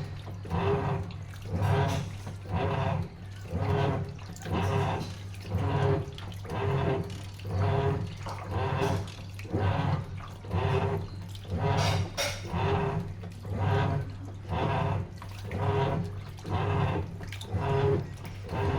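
Sharp washing machine in its wash cycle: water sloshing in regular surges about once a second as the wash action churns the load, over a steady low motor hum.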